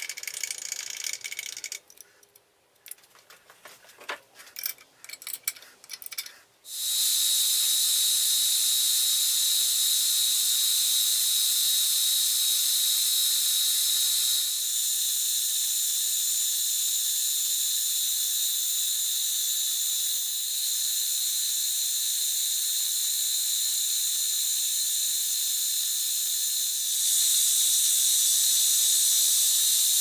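Deckel FP1 milling machine machining a metal strip: after a few seconds of faint clicks, a steady high-pitched whine with a hiss of the cut starts about seven seconds in and runs on with small changes.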